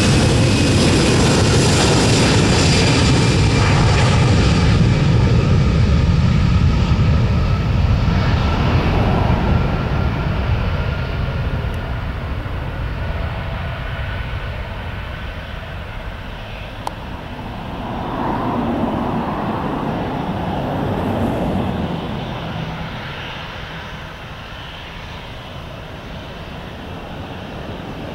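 Airbus A320's twin CFM56 turbofan engines at takeoff power as the airliner rolls past and climbs away: loud engine noise with high whining tones that slowly fall in pitch. It fades over the second half, with a brief swell about two-thirds of the way through.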